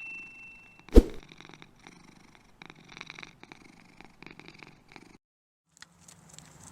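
Domestic cat purring close to the microphone, a low pulsing rumble, with a sharp knock about a second in; the purring cuts off abruptly about five seconds in. The tail of a chime fades out at the start.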